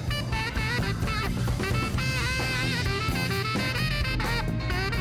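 Background music: jazzy tune with a wavering horn-like melody over a steady bass and drum beat.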